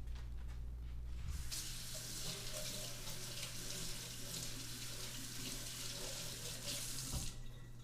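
Kitchen faucet running into a sink, rinsing a cleaned blue crab body under the stream. The water comes on about a second and a half in and is shut off sharply near the end.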